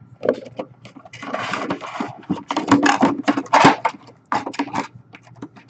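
Handling noise from a clear plastic mini-helmet display case and its cardboard box: a busy run of crinkles, rustles and clicks, loudest a little past the middle.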